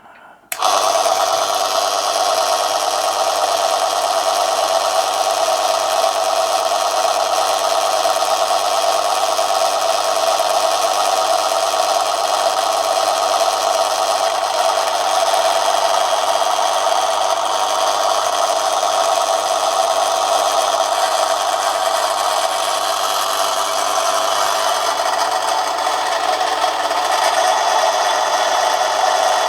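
A small Manson lathe switched on and running steadily under its electric motor, a constant mechanical whir with several fixed tones that starts about half a second in and holds the same pitch throughout.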